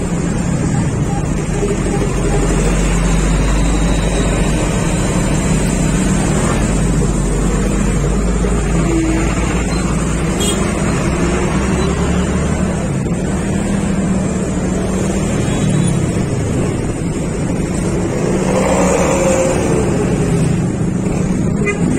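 Motorcycle engine running at a fairly steady speed while riding, with wind rushing over the microphone.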